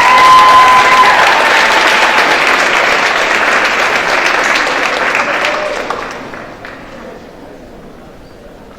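Audience applauding for about six seconds, then dying away. A single high held note, such as a cheer, rings over the clapping in the first couple of seconds.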